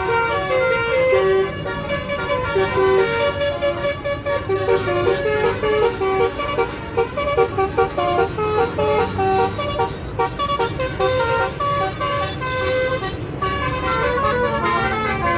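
Telolet musical horn on a Basuri bus playing a tune of quick stepping notes without a break, over the low running of the bus's engine.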